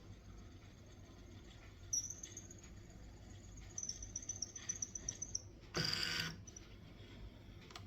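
HP LaserJet M1136 MFP printer initialising: a high thin whine from its motors that breaks into rapid chirping ticks, then a harsh grinding buzz for about half a second near the end. The faulty scanner is noisy, the kind of noise that goes with its E8 scanner error.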